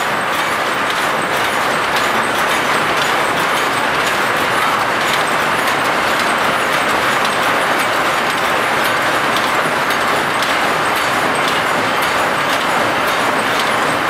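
Card-controlled (Jacquard) looms weaving straw mats, running with a steady mechanical clatter of rapid, closely spaced clicks.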